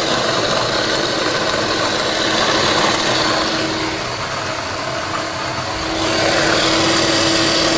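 Small electric food chopper running steadily under hand pressure, grinding almonds and amaretti biscuits: a constant motor whine over a gritty grinding noise.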